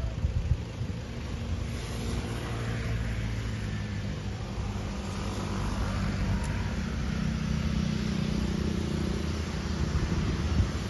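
Jet engines of an Airbus A330neo (Rolls-Royce Trent 7000 turbofans) running, a steady low rumble with a broad hiss that slowly grows louder.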